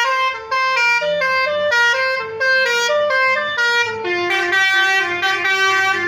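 Basuri, an Indonesian multi-tone musical bus horn, playing a sholawat melody: a loud, quick run of short notes stepping up and down in pitch, moving to lower notes about four seconds in.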